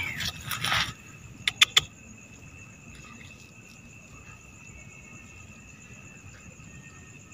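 Mole cricket (orong-orong) calling: a steady, unbroken high trill. Two sharp clicks come about one and a half seconds in.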